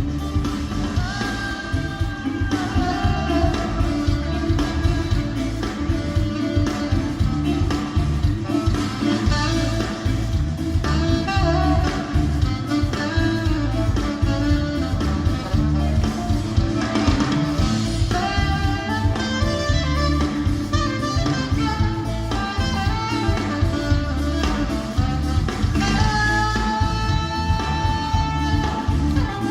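Jazz-style band music: a saxophone playing a melody with held, bending notes over guitar and a heavy, steady bass and drum backing.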